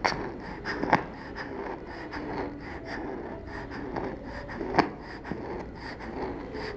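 A young child's breathing with a wheeze on breathing out: wheeze, not stridor, which is a harsh sound on breathing in. Three sharp clicks stand out, one right at the start, one about a second in and one near five seconds.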